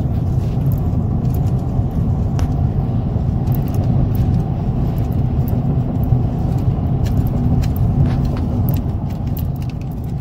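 A vehicle driving along a road: steady low engine and road rumble, with small clicking rattles scattered throughout.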